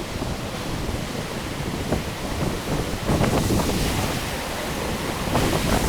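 Steady rushing roar of the Gullfoss waterfall, with wind buffeting the microphone in gusts that get heavier about three seconds in.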